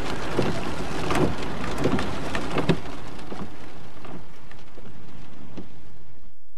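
Car cabin noise while driving in wet weather: a steady hiss of water and tyres with a low rumble, and a few sharp knocks in the first few seconds.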